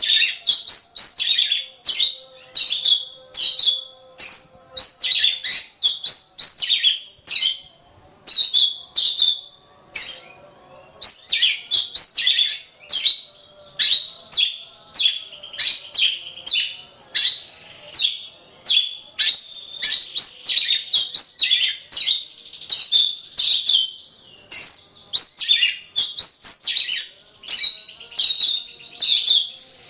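Oriental magpie-robin (kacer) singing a continuous, rapid song of short, sharp high notes and downward-sweeping whistles, several notes a second, with a brief lull about ten seconds in.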